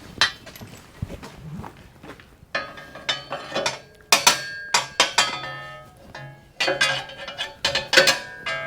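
Hammer knocking a steel pin into a tight hole in a welded steel quick coupler: sharp metal-on-metal strikes that ring after each blow. One comes near the start, then three bursts of several quick strikes follow.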